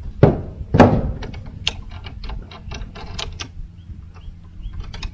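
Mower handle parts being fitted together by hand: two loud knocks of the handle tube about a quarter and three-quarters of a second in, then a quick run of sharp plastic clicks from the height-adjust knob and levers, with a few more clicks near the end.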